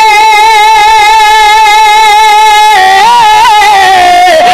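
A man singing a naat unaccompanied, holding one long note with a steady wavering vibrato; a little over halfway through the voice breaks off the held note and slides down through a few short ornamented turns.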